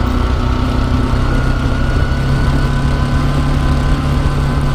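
Motorcycle engine running at a steady, even note as the bike is ridden slowly, picked up by a camera mounted on the motorbike.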